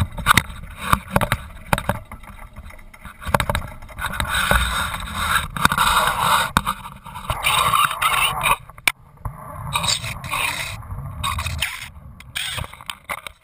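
Close handling noise on a small sailboat's mast-mounted camera as the mast is lowered: repeated knocks, clicks and scraping against the mast and mount, with a long stretch of rushing noise through the middle and a short break near the end of it.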